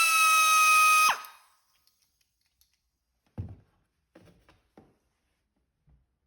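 Pneumatic rotary tool running free at full speed with a loud, steady high whine. It is shut off about a second in and spins down quickly. A few faint knocks follow as the tool is handled.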